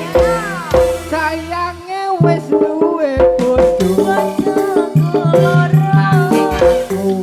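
Live dangdut-style band music: a melody line gliding up and down over a fast, busy drum and percussion beat.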